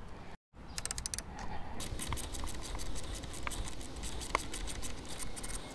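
Socket ratchet wrench clicking as it turns a handlebar bolt: a quick run of clicks about a second in, then repeated ratcheting clicks to the end.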